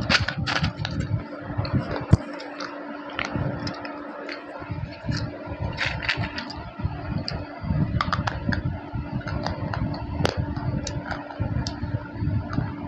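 Slate pencil pieces being bitten and chewed close to the microphone: irregular sharp crunches and crackles, with the loudest snaps a little after two seconds in and again about ten seconds in, over a steady low hum.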